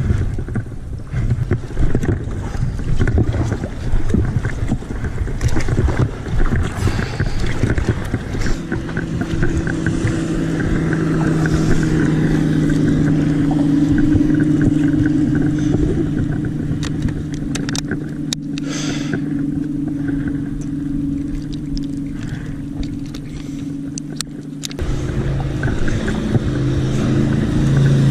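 Motorboat engine running as a steady low hum that swells and then fades, over wind and water noise. A different engine tone takes over near the end.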